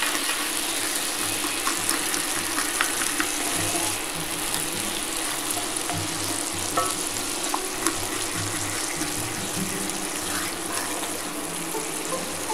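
Whisky and demi-glace peppercorn sauce sizzling and bubbling in a cast iron skillet, a wooden spoon stirring through it with occasional light clicks against the pan.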